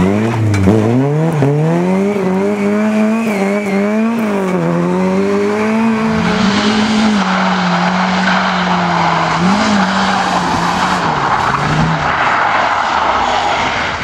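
Rally car engine revving hard, its pitch repeatedly climbing and dropping as the driver works the throttle and gears on a dirt stage. From about six seconds in a loud rushing hiss of tyres on loose surface joins the engine note, which then holds steadier.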